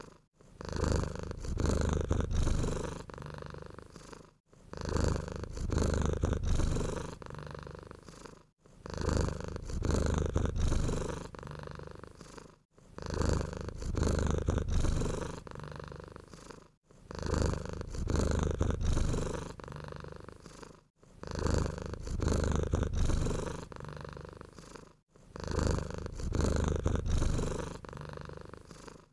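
Domestic cat purring, a low rumbling buzz that swells and fades in a steady rhythm of about one cycle every four seconds, a louder phase followed by a softer one, with a brief pause between cycles.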